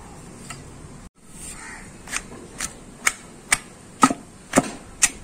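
Long wooden pestle pounding onions into gongura paste in a flat stone mortar, coarse crushing rather than fine grinding. Sharp strikes come about twice a second, starting about two seconds in after a short drop-out, and grow louder near the end.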